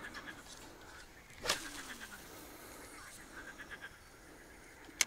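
Short, rapid-pulsed animal calls repeating again and again, with one sharp knock about a second and a half in and a sharp click at the very end.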